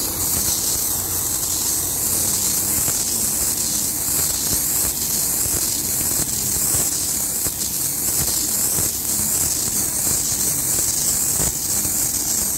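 Tractor engine running steadily, driving a Metal-Fach Z560 bale wrapper that turns a round bale as stretch film winds onto it, under a steady high hiss.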